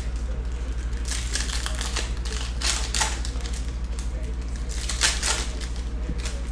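Trading cards being flipped through by hand and tapped down on a table mat: irregular crisp clicks and slaps, over a steady low hum.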